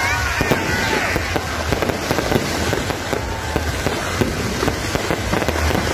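Fireworks going off in a dense, continuous crackle of many small pops. A few wavering high tones fade out in the first second.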